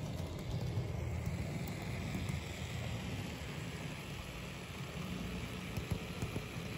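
N-scale model diesel locomotive running along the layout track pulling freight cars: a steady low rumble of wheels and motor.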